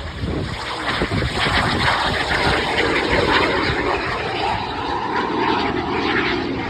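Airplane flying a low pass, its engine noise swelling to a loud rush over the first second or two and then holding.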